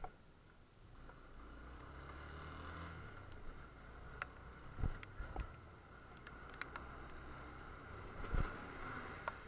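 Motorcycle riding in the rain: a low engine hum, louder in the first few seconds, under steady wind and road noise, with scattered ticks and two louder thumps about five and eight seconds in.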